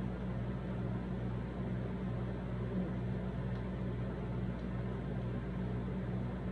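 A steady low machine hum with a constant hiss under it.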